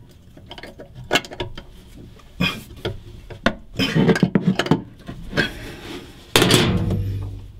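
A spanner clinking and knocking on metal threaded fittings as they are screwed onto a seacock, with a cluster of clinks about four seconds in and a longer, louder scraping noise near the end.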